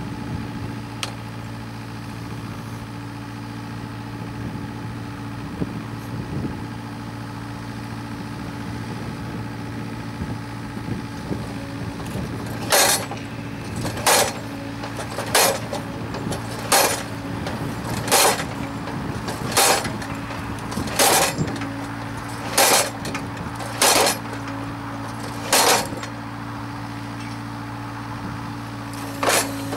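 Mini excavator's engine running steadily while the Vector Model 8 post driver's 400 kg hammer drives a wooden fence post: about ten heavy blows with a clinking ring, roughly one every second and a half, starting about halfway through, and one more blow near the end.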